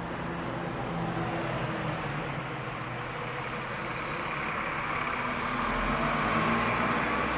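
A steady engine hum under a dense wash of ambient noise, growing gradually louder.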